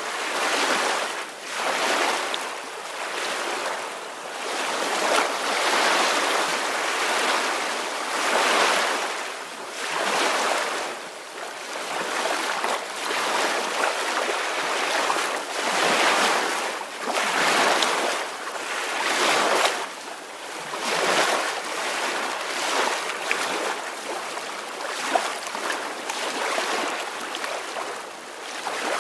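Soft ocean waves washing in. A hissing wash that swells and fades every second or two, with little low rumble.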